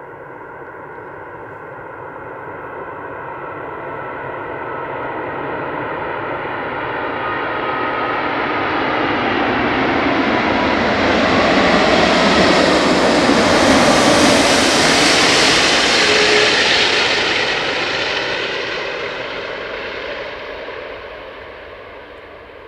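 Airbus A380's four Rolls-Royce Trent 900 turbofan engines on landing approach, gear down: a jet rush with a thin whine that grows steadily louder, is loudest about two-thirds of the way through as the aircraft passes close by, then fades as it moves away.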